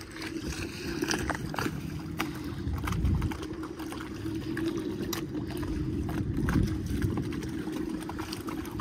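A boat's motor running steadily, with water splashing and trickling against the hull and scattered light knocks.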